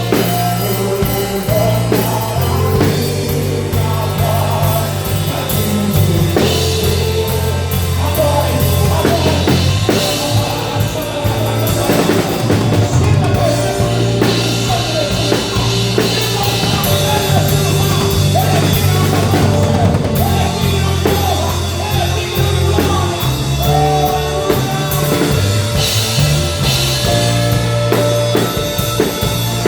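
Live rock-style worship band playing, with held electric bass notes and a drum kit with cymbals driving the beat.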